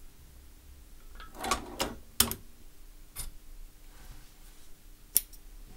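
About half a dozen irregular sharp metallic clicks and clacks from a Chinese leather sewing machine (shoe patcher) as stitched leather is worked free of its needle and presser foot; the sharpest click comes a little after two seconds in, another about five seconds in.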